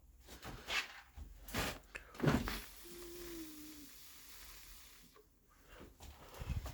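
Hands handling hard plastic fittings: a series of knocks, clicks and rustles, with a short squeak about three seconds in.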